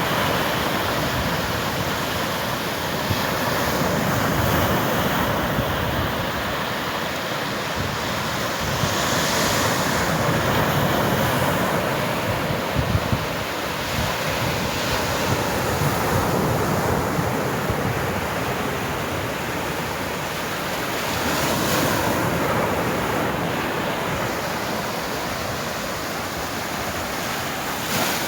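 Sea waves washing onto the shore, a continuous rushing surge that swells and eases every few seconds, with wind on the microphone.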